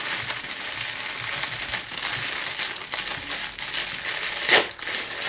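Plastic packaging bag crinkling as it is handled and opened, with one louder rustle about four and a half seconds in.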